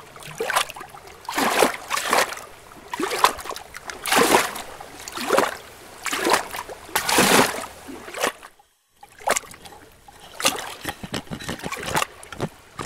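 Pool water splashing and sloshing against the camera's waterproof housing at the surface, in irregular surges, with a brief drop to near silence a little past two-thirds through.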